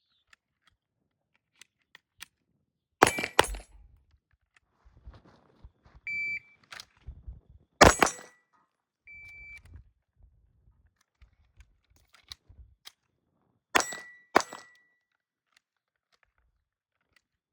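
Glock 44 pistols firing .22 LR: shots in quick pairs about three seconds in, near eight seconds and near fourteen seconds. Two short high electronic beeps sound in between.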